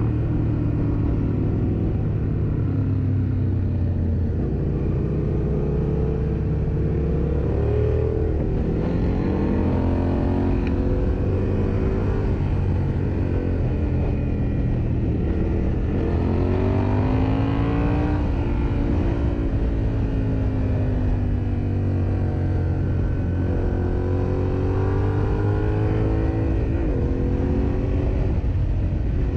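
Yamaha Ténéré 700's parallel-twin motorcycle engine under way, its pitch rising and falling again and again as the bike accelerates and eases off, over a steady low rumble.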